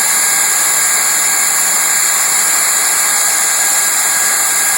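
Leister hand-held hot-air welding gun running with a steady hiss, its blower pushing air heated to roughly 600 °C through a speed tip as it melts welding rod into a vinyl floor seam.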